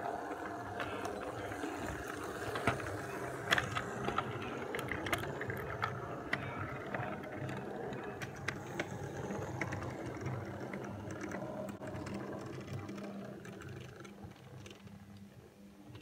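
00 gauge model train running along the track: a steady motor hum with scattered clicks from the wheels on the rails, fading away over the last few seconds as it moves off.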